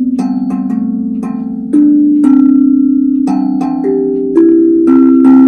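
Steel tongue drum struck with mallets, playing a slow melody of single notes about half a second apart, each note ringing on with a slight wobble and overlapping the next.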